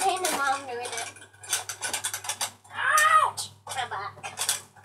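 A child's voice, speaking or vocalising indistinctly in short bits, with scattered clicks and light clatter of small objects being handled.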